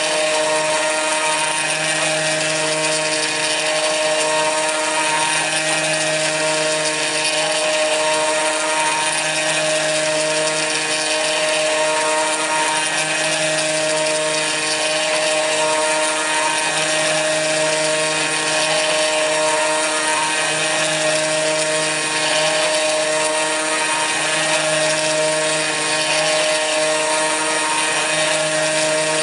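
Kress FME-1050 router spindle on a hobby CNC mill running at speed and cutting aluminium: a steady whine with a hiss of cutting over it. Part of the sound swells and fades about every two seconds.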